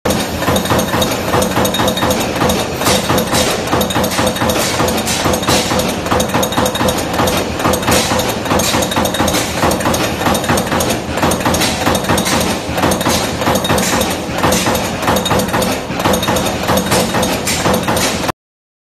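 O-frame CNC turret punch press punching rows of holes in a metal sheet: a rapid, continuous run of sharp metallic hits over a steady machine hum. It cuts off suddenly near the end.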